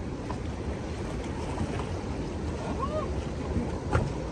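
Steady rush of water with wind buffeting the microphone. A faint voice comes in about three seconds in, and there is a single sharp click near the end.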